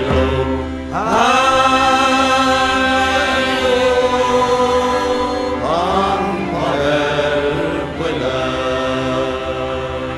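Choir singing long held chords with a band underneath, in a gospel style; the voices scoop up into a new sustained chord about a second in and again about six seconds in.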